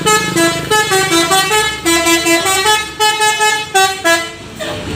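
A tour bus's multi-tone musical 'telolet' horn playing a quick melody of short notes, which stops about four and a half seconds in.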